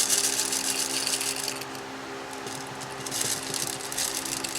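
Small lead birdshot pellets rattling and trickling into a synthetic rifle stock: a dense rush of tiny clicks for about the first second and a half, then scattered clicks. A steady low hum underneath.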